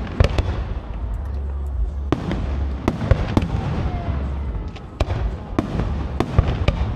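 Aerial firework shells bursting overhead: about ten sharp bangs at irregular intervals over a low rumble.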